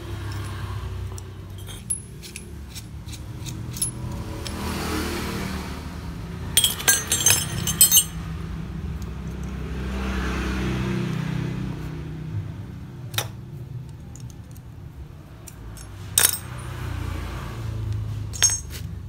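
Metal tools clinking on a workbench as a bearing puller and a wrench are handled: a quick run of clinks about seven seconds in and single taps later. Under it a low rumble swells and fades twice.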